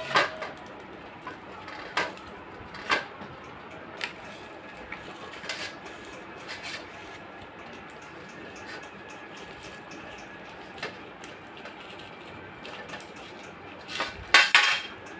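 Foil-lined paper carton crackling and tearing as it is cut and peeled off a frozen block of ice cream with a knife: scattered sharp crackles and clicks, a cluster of them in the first four seconds and the loudest burst near the end.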